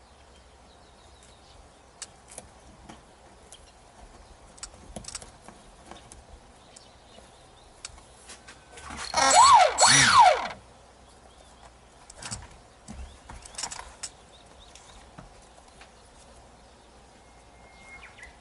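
A small electric motor on a foam RC plane, run up briefly from the transmitter throttle about nine seconds in: a whine that climbs and then winds down steeply within about a second and a half. Scattered light clicks and taps come before and after it.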